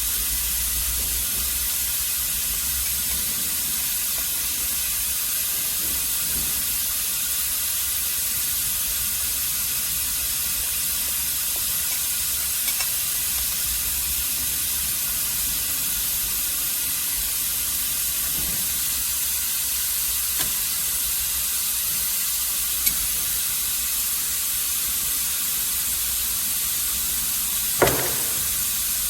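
Ultrasonic cleaner running with a steady sizzling hiss as it cleans a seized fuel pump. There are a few faint clicks, and a sharper knock comes about a second before the end.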